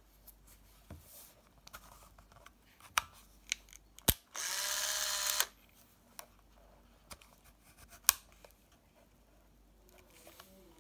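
Olympus Trip XB400 35 mm compact camera being handled: a few light plastic clicks, then a sharp shutter click about four seconds in, followed at once by the whir of its film-advance motor for about a second, and a few more clicks after.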